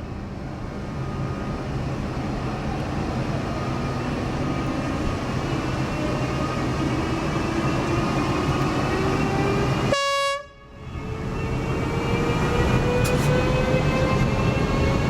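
KZ4AC electric locomotive pulling away with a passenger train: a steady rumble with several whining tones that rise slowly in pitch as it gathers speed. A short horn blast comes about ten seconds in, after which the sound briefly drops away.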